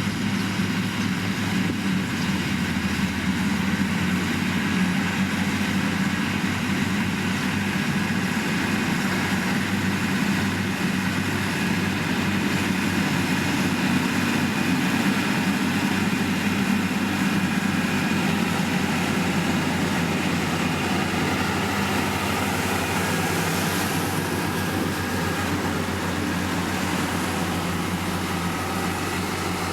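Heavy road-construction machinery engine running steadily, a constant low drone with no breaks.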